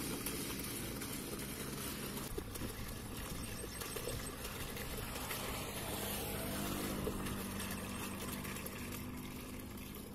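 Water pouring from a plastic jerry can into an upright plastic pipe, over the steady hum of an engine running.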